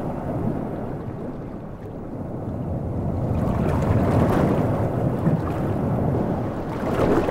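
Sea water rushing and sloshing at the surface, a steady churning noise that swells about halfway through.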